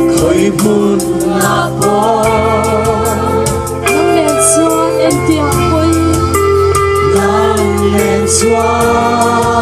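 Live worship music: singers on microphones sing a gospel-style song over a band with sustained keyboard chords and a steady drum and cymbal beat.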